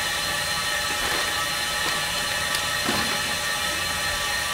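Vacuum unit running steadily, a constant hiss with a faint high whine, drawing the air out of an inflated pipe-repair packer through its push hose so the packer can be pulled out. A few light rustles and knocks come from the fiberglass repair mat being handled.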